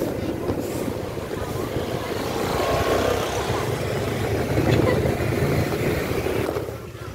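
Motorcycle engine running steadily while riding along, dipping briefly near the end.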